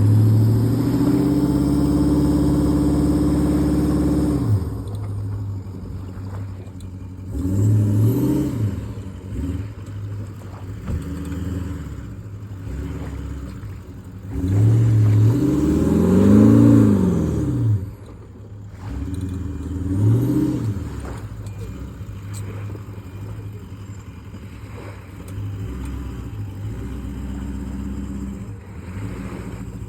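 Car engine revving up and easing off several times under load as the vehicle tugs on a screw-in mooring anchor set in the ground: a long pull at the start, a short rev about a quarter of the way in, the biggest rise and fall around the middle, and another short rev after it.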